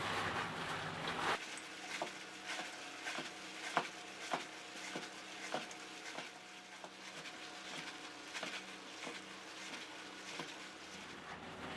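Hands kneading and squeezing wet grated cassava mixed with sugar and pandan water, making soft, irregular wet squishes and pats as the sugar is worked in to dissolve.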